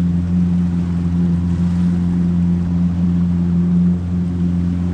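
A boat's motor running steadily, a constant low engine hum.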